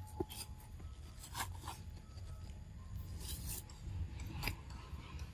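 A macaque biting into and chewing a firm green mango: several short, crisp crunches of the hard fruit flesh, the loudest about a second and a half, three and a half, and four and a half seconds in.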